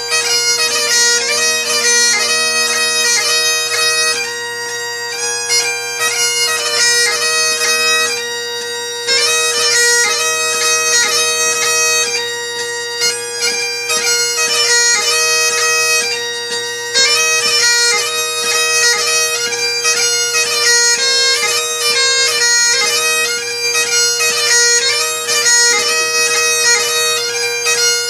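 Great Highland bagpipe playing a lively dance tune, the chanter melody moving quickly over steady, unbroken drones.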